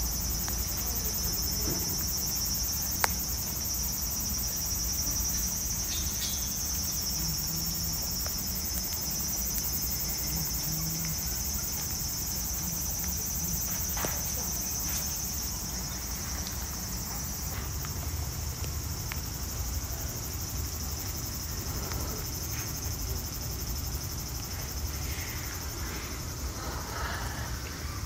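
Steady, high-pitched drone of insects singing, with a single sharp click about three seconds in.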